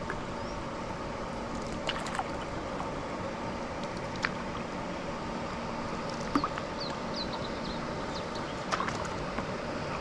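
Water sloshing and gurgling around a stand-up paddle board as it is paddled along, with several sharp splashes and drips from the paddle. A few short high bird chirps come in around the middle.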